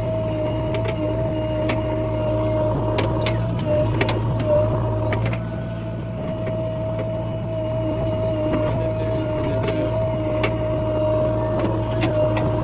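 JCB machine's diesel engine running steadily, with a high, slightly wavering whine over the engine hum and scattered clanks and knocks.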